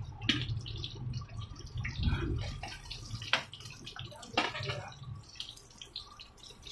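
Oil sizzling and crackling in a frying pan around egg-stuffed bitter melon pieces, with sharp clinks and scrapes of a metal spatula against the pan as the pieces are lifted out. A low hum stops about five seconds in.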